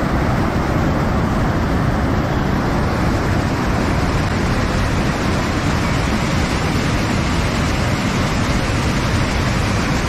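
Loud, steady rushing of a swollen river's whitewater cascading over rocks at a waterfall.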